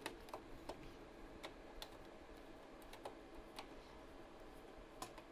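Faint, irregular light clicks and ticks, about ten over a few seconds, from small parts being handled while a plastic power strip housing and its self-tapping screws are worked on; the sharpest click comes near the end.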